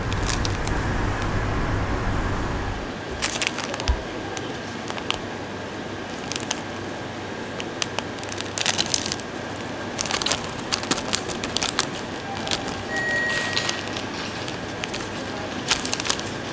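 Crinkly plastic snack bag of grilled scallop strips crackling and rustling in short irregular bursts as it is handled, opened and the dried strips tipped into a hand. A low hum runs for the first few seconds, then stops.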